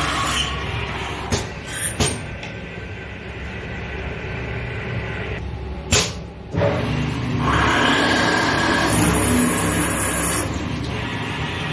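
Special-purpose chamfering and drilling machine running steadily, with short sharp knocks about a second and a half, two and six seconds in, and a louder, hissier stretch from about seven and a half to ten and a half seconds.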